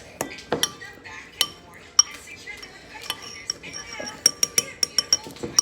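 Cutlery clinking against a dish while eating: sharp clinks that ring briefly, scattered at first, then a quick run of about eight near the end.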